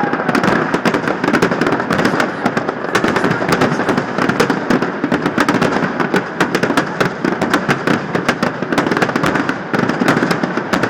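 Fireworks finale: a dense, unbroken barrage of rapid bangs and crackles, many shells going off close together.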